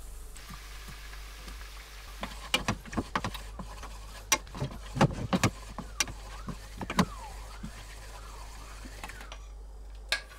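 Red wine sauce simmering in a nonstick frying pan with a steady bubbling hiss. A spoon clicks and taps against the pan from about two seconds in. Then a squeaky rub rises and falls over and over as cold butter is stirred round the pan.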